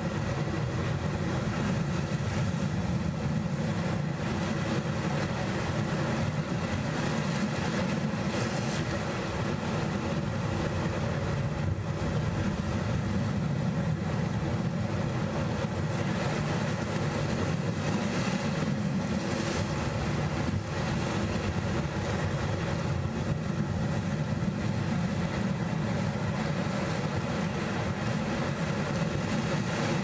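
Sea waves washing in over rocky shore, a steady low rumble with two brief brighter surges of spray about eight and nineteen seconds in.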